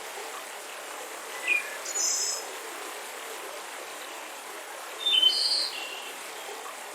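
Steady rush of a mountain river with birds chirping over it: short high calls about a second and a half and two seconds in, then a louder cluster of chirps about five seconds in.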